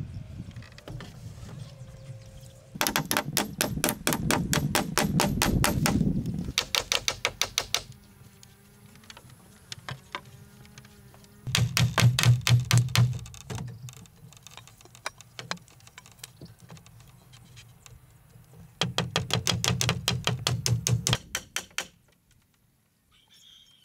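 Quick runs of sharp knocks from a hand tool working bamboo, several strokes a second, in four bursts with short pauses between.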